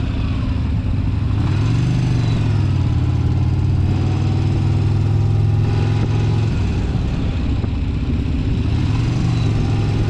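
V-twin motorcycle engine running steadily at road speed during a ride, its pitch rising briefly twice as the throttle is opened, with a steady rush of wind noise.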